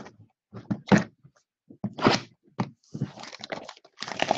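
Hands handling a cellophane-wrapped trading card box: a few separate thumps and knocks, then steady crinkling of the plastic wrap from about three seconds in.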